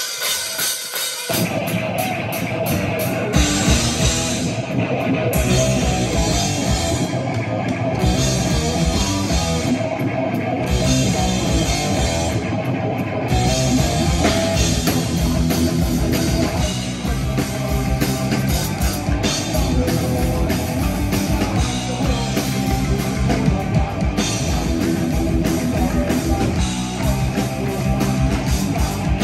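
Heavy metal band playing live and loud: distorted electric guitars, bass guitar and drum kit. The band comes back in right after a brief break at the start, and the kick drums join about three seconds in.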